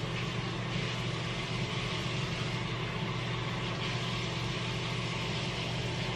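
Steady hum and airy hiss of a running fan, unchanging throughout.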